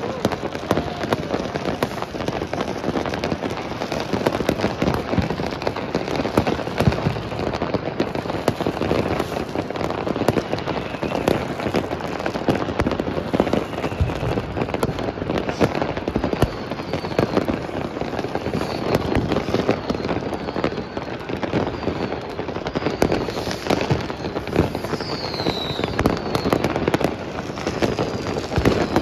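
Many fireworks and firecrackers going off at once: a dense, unbroken run of bangs, pops and crackle. From about halfway on, short falling whistles cut through, more of them near the end.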